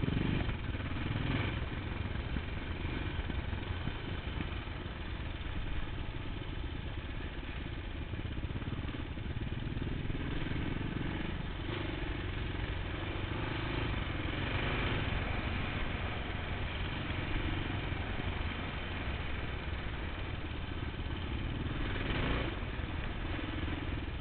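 Kawasaki KLX 650's single-cylinder four-stroke engine running off-road, with mild rises and falls in engine speed.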